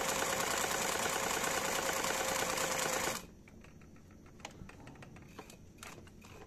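Brother Pacesetter sewing machine running fast, stitching the closing bartack that finishes a buttonhole, then stopping abruptly about three seconds in. Faint clicks and handling sounds follow as the fabric is moved under the presser foot.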